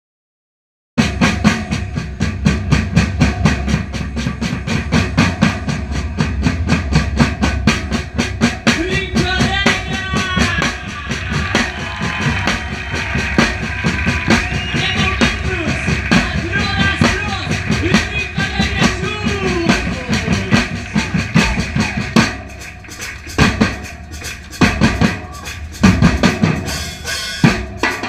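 Drum-led percussion music: bass drum and snare playing a fast, dense beat that starts about a second in. Pitched, wavering sounds ride over it in the middle, and near the end the beat breaks into sparser, separate hits.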